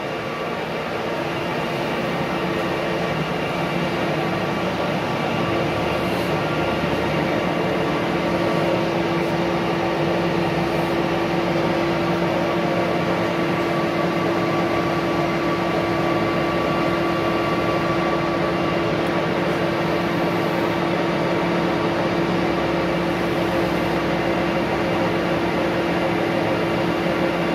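Ajax AJVTL2300 vertical turning lathe running with its 2-metre chuck table turning at 40 RPM: a steady machine hum with several held tones, building slightly over the first few seconds.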